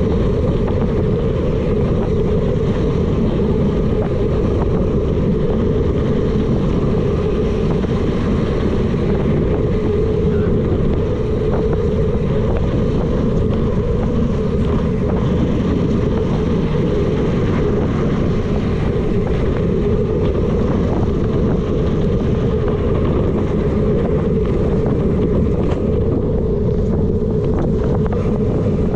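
Steady wind rushing over the microphone of a camera mounted on a mountain bike rolling fast along a dirt singletrack, mixed with the rumble of the tyres on the trail.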